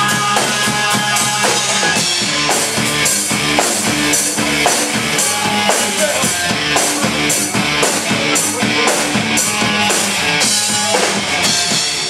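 Rock music: a steady drum-kit beat with bass drum and guitar.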